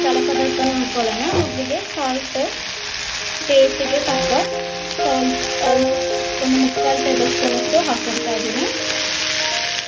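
Potatoes and green beans frying in an oiled pan, a steady sizzle, under background instrumental music of held notes that slide between pitches.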